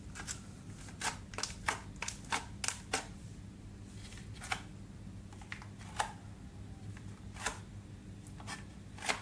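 Metallic-grey slime, clear slime mixed with makeup, being squished by hand and scored with a knife, giving sharp little pops and clicks: a quick run of them in the first few seconds, then single pops about a second apart. A faint low hum runs underneath.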